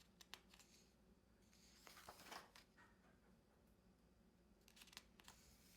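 Near silence with faint rustling and a few light clicks of planner pages being handled and turned on their plastic discs.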